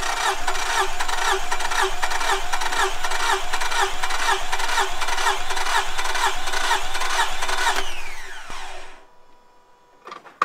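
Scion tC's 2.4-litre four-cylinder engine cranked over on the starter motor for a compression test, with the spark plugs out and the fuel injectors and ignition disabled, so it spins without catching. The cranking runs with an even pulsing rhythm, then stops about eight seconds in and winds down with a falling whine.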